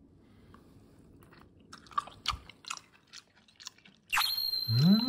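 Someone chewing a slice of raw scorpionfish sashimi, with a run of small wet mouth clicks. About four seconds in comes a sharp clink that rings on with a high steady tone. Over it is a hummed 'mm' that rises and then falls in pitch.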